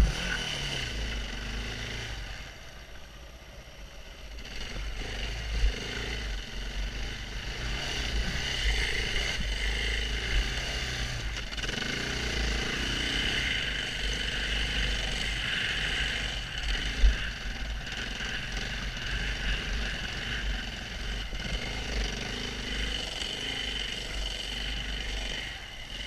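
KTM 690 Enduro R's single-cylinder four-stroke engine running as the bike is ridden on sand, easing off for a couple of seconds early on and then pulling steadily again. A brief thump about six seconds in and another near seventeen seconds.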